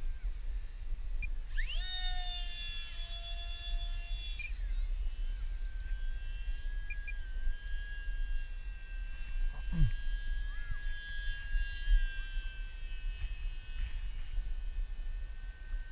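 Electric motor and pusher propeller of a Stryker RC flying wing whining in flight. The whine jumps up in pitch about two seconds in, holds, then settles to a lower steady whine with a brief falling swoop near the middle. Wind rumbles on the onboard camera's microphone.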